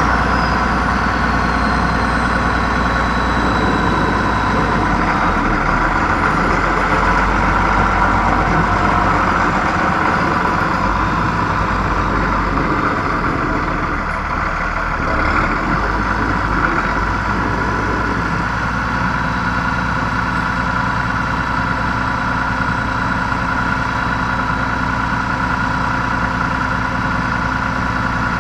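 Tractor engine idling steadily, with a faint high whine falling away over the first few seconds and a slight change in the engine note about two-thirds of the way through.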